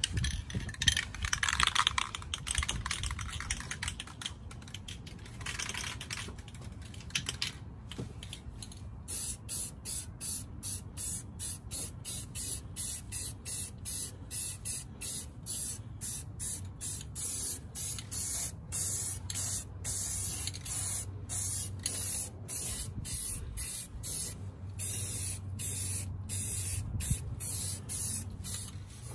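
Aerosol spray-paint can spraying: longer sprays at first, then from about eight seconds in a run of short hissing bursts, about two a second.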